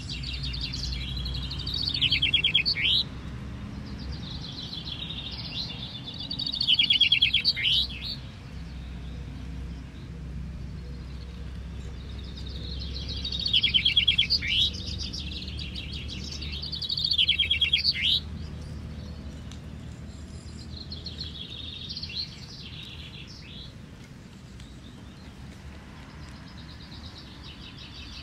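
Male common chaffinches singing in turn, five songs a few seconds apart, each a rapid trill falling in pitch and ending in a short flourish; the last song is fainter. A steady low rumble runs underneath.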